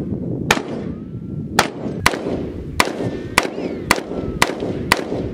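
Rifle gunfire outdoors: about nine sharp shots, roughly two a second at uneven spacing, each with a short echo. The shots come from semi-automatic rifles, a wooden-stocked military rifle and then an AR-15-style carbine.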